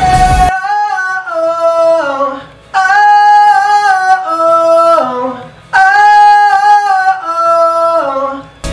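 Wordless vocal harmonies with the beat and bass dropped out: three held chords, each stepping down in pitch. The full R&B backing comes back in at the very end.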